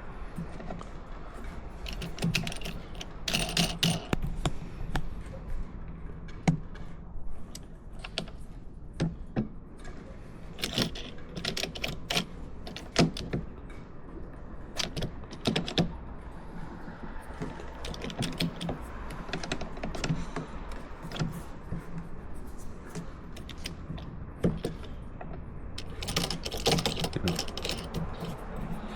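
Irregular clicks, taps and light rattles of clamp and selfie-stick hardware being handled and fitted, in bunches of quick clicks with pauses between.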